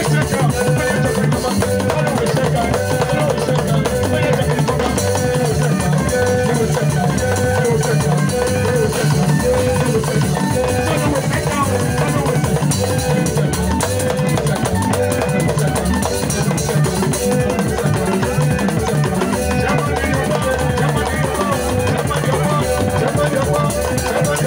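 Band music with a drum kit and bass drum keeping a steady beat under held melodic notes.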